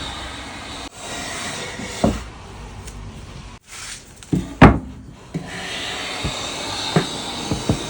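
Wood being worked by hand: a steady scraping rub on wood, broken by a few sharp wooden knocks, the loudest about four and a half seconds in.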